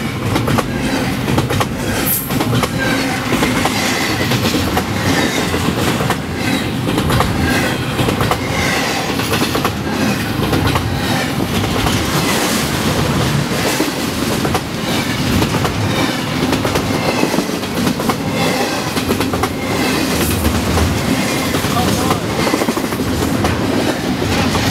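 Freight train rolling past at close range: a loud, steady rumble of steel wheels on the rails, with repeated clicks as the wheels pass over rail joints.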